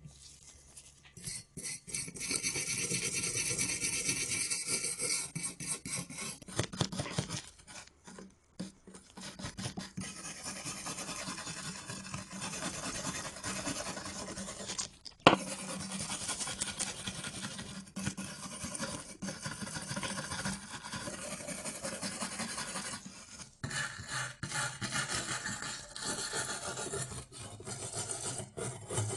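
Rapid rasping strokes of abrasive hand work on a car part, going on in runs with a short break about eight seconds in. One sharp knock, the loudest sound, comes about halfway through.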